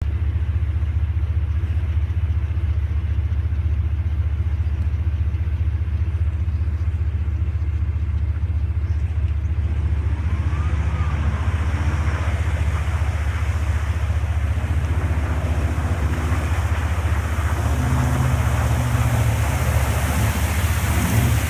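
1994 Chevy Silverado pickup engine running with a heavy low rumble, revving up and down repeatedly in the second half. A rushing hiss builds alongside it toward the end.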